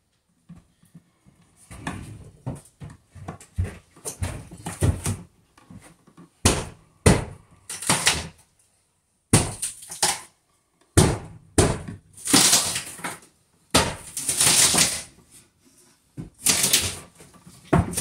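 Pliers clicking and scraping against electrical wires at an outlet box as a receptacle is wired: an irregular run of sharp clacks and short rasping scrapes, with two longer rasps in the second half.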